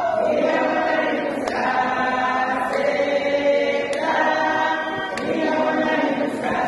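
A group of women's voices singing together unaccompanied, in a chant-like group song, with a few short sharp clicks among the singing.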